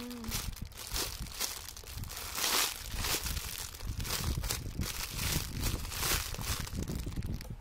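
Thin plastic bag crinkling in irregular short bursts as a squishy toy is squeezed and handled inside it, with low handling bumps underneath.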